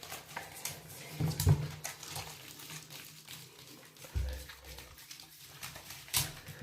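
A dog making a few short sounds while being scrubbed in a bath, among irregular handling and wet rubbing noises. The loudest sound comes about one and a half seconds in, with a low thud a little after four seconds and a sharp click near the end.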